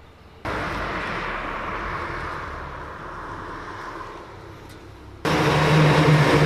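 A rushing noise starts suddenly about half a second in and slowly fades, falling in pitch. About five seconds in, a truck's engine comes in loud with a steady low hum as the truck drives up the road towards the microphone.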